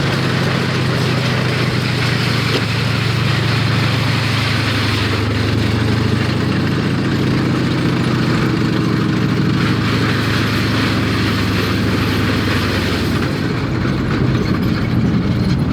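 Engine of a heavy military vehicle running steadily, a low even drone with a dense rushing noise above it, the pitch sagging slightly about halfway through.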